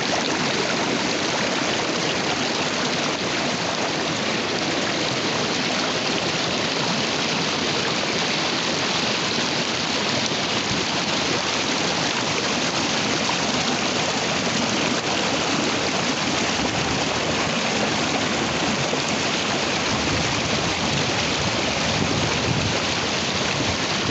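Icy river running and murmuring over its bed, an even, unbroken rush of water.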